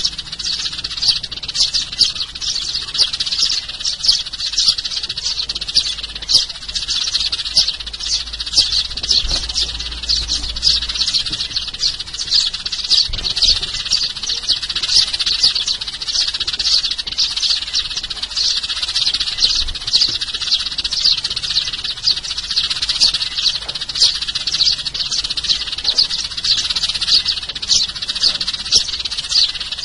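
A flock of sparrows chirping continuously, several short overlapping chirps a second. It is a sparrow lure recording, the kind played to draw sparrows in.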